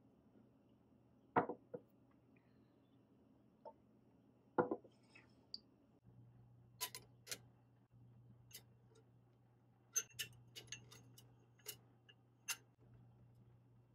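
Glass custard jars set down on a wooden counter with two dull knocks, then a run of sharp clinks as the jars are placed into a stainless steel steamer basket in a pot. A faint low hum runs underneath.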